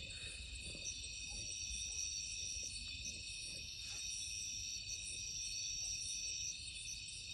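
Crickets and other night insects trilling steadily in several high-pitched layers. A higher trill comes in about a second in and breaks off briefly a few times.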